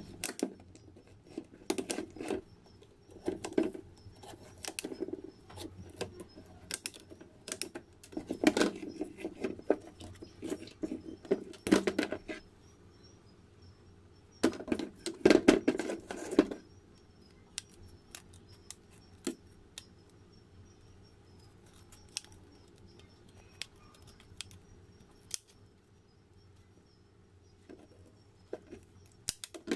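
Steel scissors snipping and prying at the old black coating on a rusty pair of scissors' handles, with crackling and clicks as the coating breaks away. Irregular clusters of snips in the first half, then only scattered single clicks.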